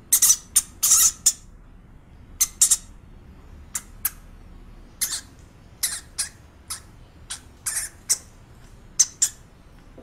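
Small rodent squeaking: about twenty short, high-pitched squeaks, some in quick pairs or clusters, with short gaps between.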